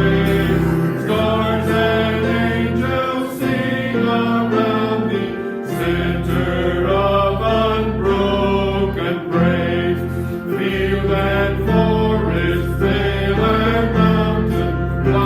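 Congregation singing a hymn together over an instrumental accompaniment with held bass notes that change every few seconds.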